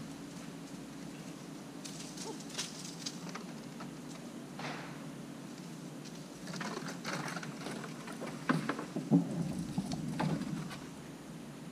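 Eastern gray squirrel scratching and scrabbling: scattered light clicks and scrapes that grow busier in the second half, with a couple of sharper knocks, over a steady low hum.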